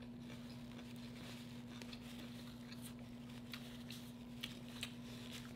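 Faint rustling of a paper napkin rubbed over greasy fingers, with a few light clicks, over a steady low hum.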